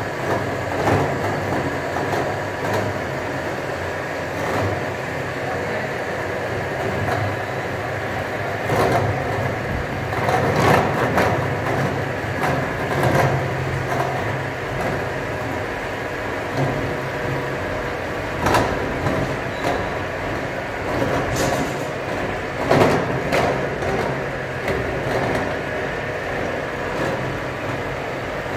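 CNC rack cutting machine milling teeth into steel rack bars, with a steady mechanical running noise and a few faint steady tones. Sharp knocks and clatters stand out at a few points, about nine, eleven, eighteen and twenty-three seconds in.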